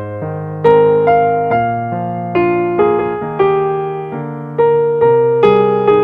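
Calm electric piano music: single notes struck one after another with chords under them, each note fading after it is played.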